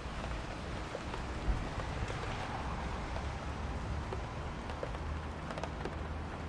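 Thunderstorm: steady heavy rain with scattered individual drops ticking, over a low continuous rumble.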